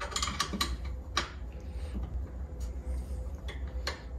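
Irregular light metallic clicks and ticks of a hex driver and screw in a 2020 aluminium extrusion joint as the M6 screws are snugged through the blind holes. The clicks come several in the first second, then more sparsely, over a low steady hum.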